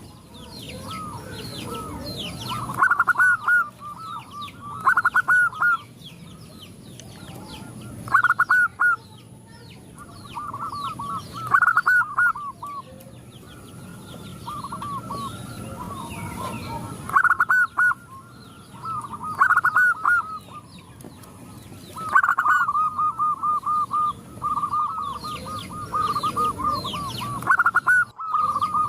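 Several zebra doves (perkutut) cooing, one answering another: loud phrases of quick rolling coos come every few seconds and overlap near the end.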